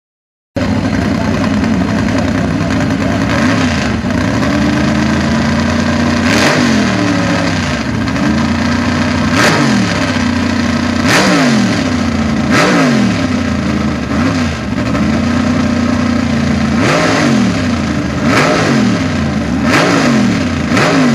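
A mud-racing car's small-block V8 running through open headers, starting about half a second in. It runs steadily at first, then is blipped up and back down repeatedly, about every one and a half seconds, from about six seconds in.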